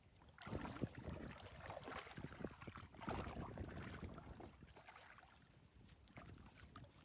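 Shallow, muddy creek water sloshing and splashing around a person wading, with a few faint knocks and scrapes from a crab hook working among mangrove roots and mud.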